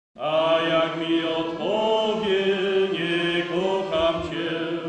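A man singing a Polish patriotic song into a microphone, in slow, long-held notes, with the sound dropping away near the end.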